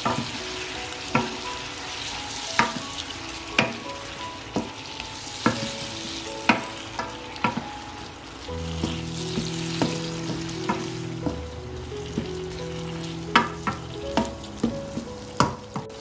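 Chicken wings and chopped tomatoes sizzling in a wok while being stirred with a wooden spoon. The spoon knocks sharply against the wok roughly once a second, with a short lull about halfway through.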